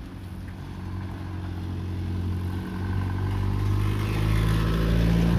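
A motor vehicle engine running steadily at low revs, growing gradually louder.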